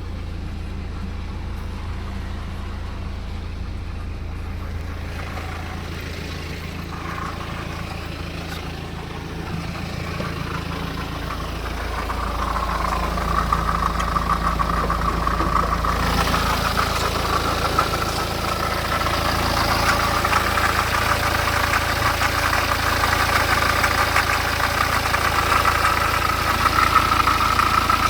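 BMW 318d four-cylinder diesel engine running, with a steady low hum. A high-pitched tone comes in about twelve seconds in and grows louder toward the end; this is the strange sound the owner is asking about.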